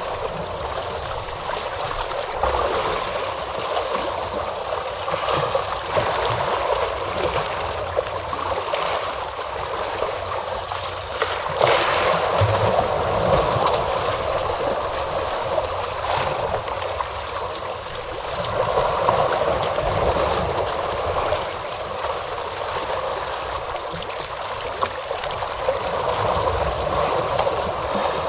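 Ocean waves washing ashore: a continuous rush of surf that swells and eases every several seconds, with a sharper splash about twelve seconds in.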